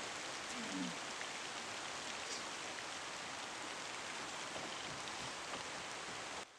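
Steady, even hiss of background noise that cuts off abruptly just before the end.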